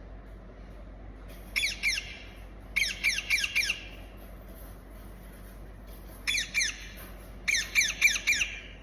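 A parrot squawking in four short bursts, each a quick run of four or five harsh screeches falling in pitch, with pauses of a few seconds between them.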